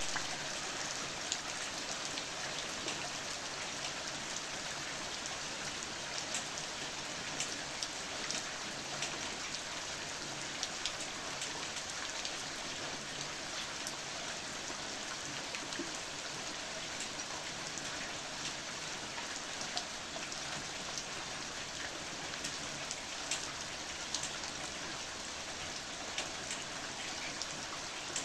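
Steady rain falling, an even hiss with scattered sharper drops pattering on a surface.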